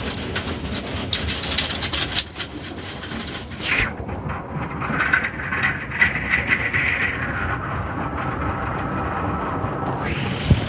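Automatic tunnel car wash heard from inside the car: steady rumbling of the wash machinery, with water spraying and cloth brushes scrubbing against the glass and body. Scattered knocks, a short whoosh about three and a half seconds in, and a louder hissing stretch around the middle.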